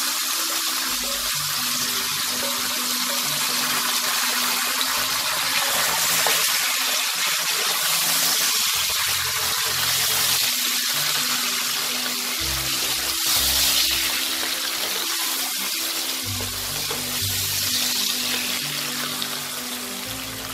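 Boiled taro leaves and stems frying in hot mustard oil in a wok, a steady sizzling hiss as they are stirred with a spatula, with background music underneath.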